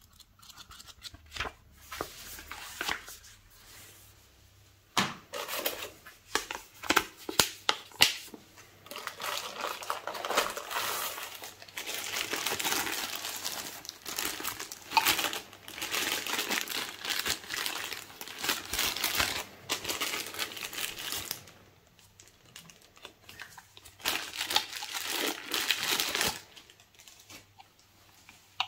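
Thin plastic bag crinkling and rustling in long stretches as it is pulled open and off a power adapter, after a few seconds of scattered taps and rustles of handling.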